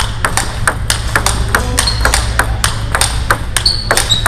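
Table tennis ball being hit back and forth in a forehand-block rally, with one paddle faced with Yasaka Rakza Z rubber: sharp clicks of the ball on the paddles and table, about four a second, mixed with hits from other tables in the hall.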